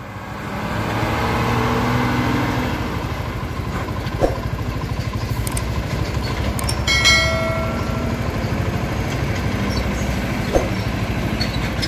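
Mercedes-Benz diesel truck towing a drawbar trailer pulling away, its engine growing louder over the first two seconds, then a steady drone as it drives off. A short pitched tone sounds about seven seconds in.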